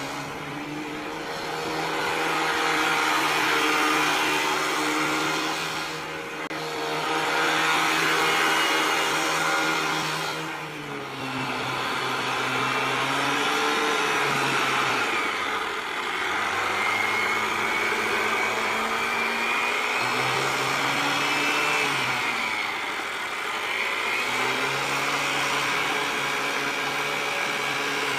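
Honda Activa scooter engine, a single-cylinder four-stroke, running the scrap-built boat. Its speed eases off and picks up again about five times, with a high whine riding above the engine note.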